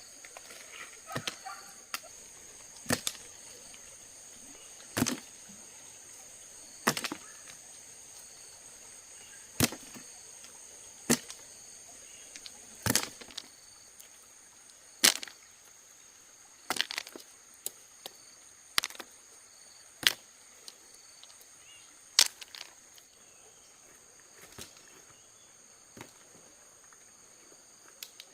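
Sharp knocks, roughly one every two seconds, some doubled, over a steady high-pitched drone of insects.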